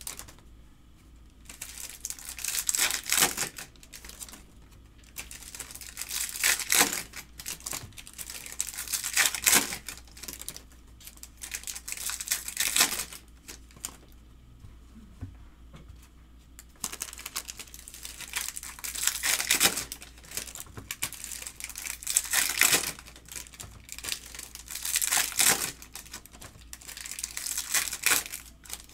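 Foil trading-card pack wrappers crinkling and being torn open by hand, in short rustling bursts about every three seconds.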